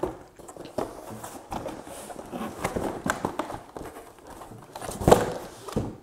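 Cardboard packaging being handled: boxes scraping and rustling as they are slid and lifted, with several knocks and a louder thump about five seconds in.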